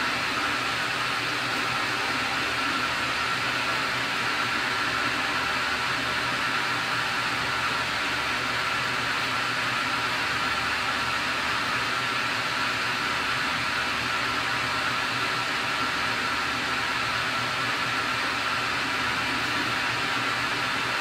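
Steady whirring machine hum with a constant high-pitched whine, unchanging throughout.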